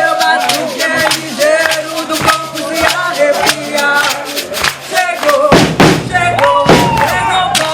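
Live percussion-led music: quick, steady drum strokes about four to the second, with voices singing over them. A burst of noise lasting about a second comes roughly five and a half seconds in.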